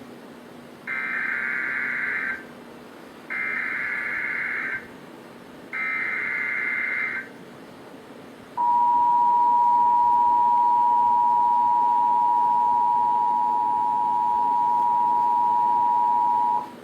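Emergency Alert System tones opening a tornado watch alert: three short bursts of SAME digital header data, each about a second and a half, followed by the steady two-tone EAS attention signal held for about eight seconds.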